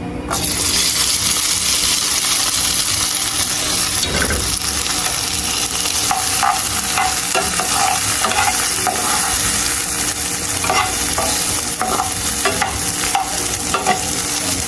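Boiled, cut potatoes frying in hot oil in a pot: the sizzle starts suddenly as they go in and then holds steady. A utensil clicks and scrapes against the pot as they are stirred, more often in the second half.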